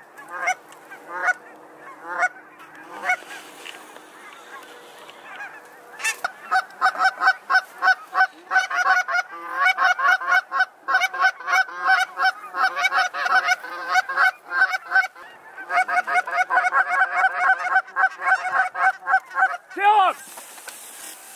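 A flock of geese honking overhead, with a few scattered calls at first and then a dense, rapid, overlapping chorus from about six seconds in. A lower, falling call comes near the end.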